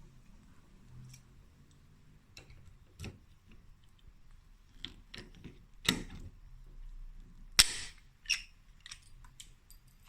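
Irregular light clicks and knocks of hard objects being handled, scattered through, with the sharpest snaps about six and seven and a half seconds in.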